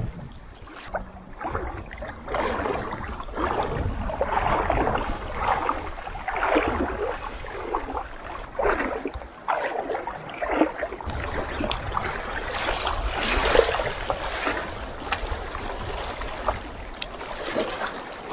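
A person wading through shallow water, the legs sloshing and splashing with each stride, a surge about every second, over a low wind rumble on the microphone.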